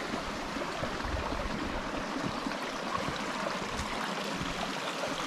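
A small stream of water running and splashing over rocks in a steady trickle.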